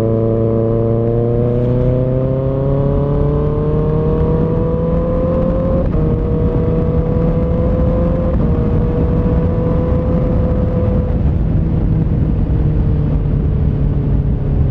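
Kawasaki ZX6R inline-four running through an M4 GP19 exhaust with the Q3 dB-killer insert, under way on the highway. The engine note climbs steadily for about six seconds, breaks briefly twice, then holds a steady pitch and eases off slightly near the end.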